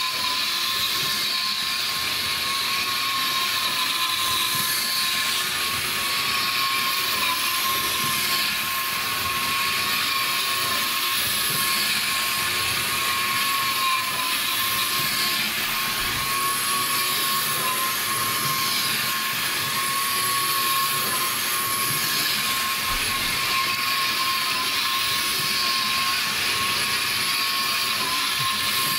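Small electric motor of an HO-scale model train locomotive running steadily, a steady whine over a hiss.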